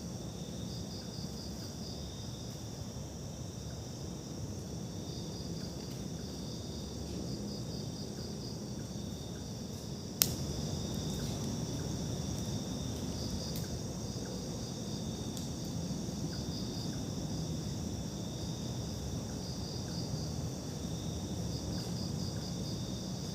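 Insects chirping in the woods: a steady high trill with repeated short trains of pulsed chirps over it, and a low rumble underneath. A single sharp click about ten seconds in.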